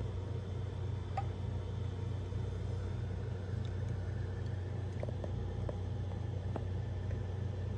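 A steady low hum with a few faint ticks scattered through it.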